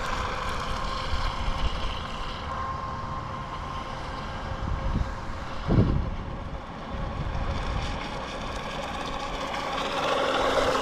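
WLtoys WL915-A brushless RC jet boat running out on the water, its motor a thin, steady whine that wavers slightly in pitch, over a low rumble. A short low thump comes about six seconds in.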